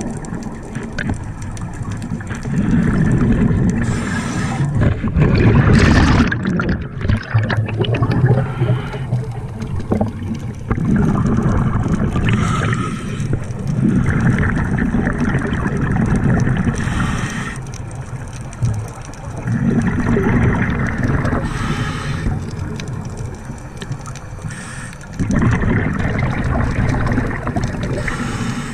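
Scuba diver breathing through a regulator underwater: a hissing inhale, then a gurgling, rumbling rush of exhaled bubbles, repeating every few seconds.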